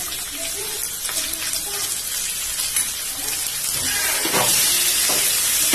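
Potato chunks and fried onions sizzling in hot oil in a pan. About four seconds in the sizzling gets louder as a spatula starts stirring them.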